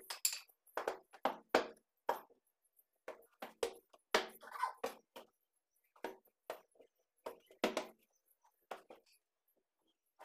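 Irregular soft knocks and thumps with rustling as rolled-up floor rugs are lifted and set down, with a longer stretch of rustling about four seconds in.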